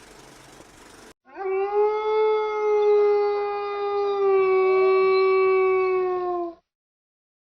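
A canine howl: one long, even call of about five seconds, beginning about a second in, rising slightly and then slowly sinking in pitch before it cuts off.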